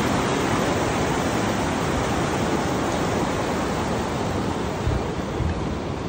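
Mountain river rapids, whitewater rushing steadily over rocks.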